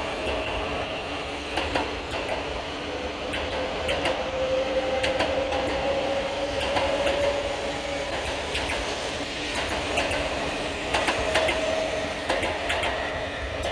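E4 series Max double-decker Shinkansen pulling out and gathering speed, with a steady running rumble and a whine that rises slowly in pitch. The wheels click irregularly over the track.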